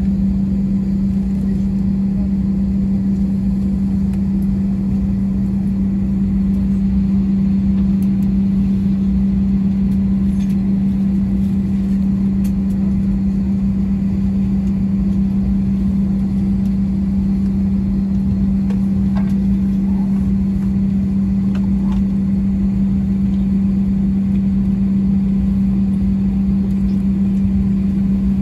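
Steady cabin drone inside an Airbus A320 on the ground, a constant low hum held at one pitch over a low rumble.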